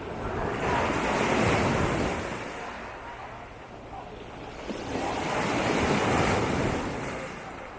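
Small waves breaking and washing up the beach, two in succession, each swelling up and then dying away.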